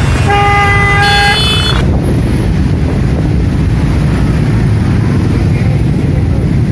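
Road traffic: two vehicle horns honk over each other for about a second and a half near the start, then the steady engine noise of motorcycles and cars continues.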